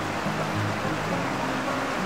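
Background music of slow, held low notes over the steady rush of a shallow rocky river.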